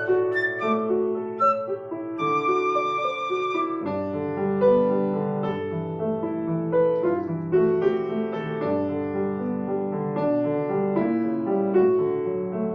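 Flute and grand piano playing together: the flute plays a few short notes, then one long held note with vibrato that ends about four seconds in, and the piano carries on alone.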